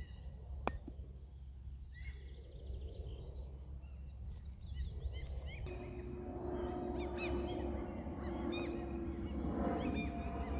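A golf wedge strikes a golf ball once in a chip shot, a sharp click under a second in, over birdsong. About halfway through a steady low tone comes in under the birds.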